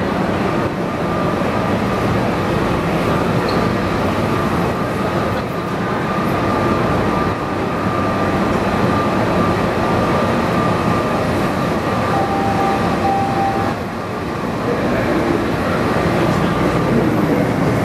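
Washington Metro train standing at the platform with its doors open: a steady loud hum with a thin high whine held throughout. About twelve seconds in comes a short two-part tone.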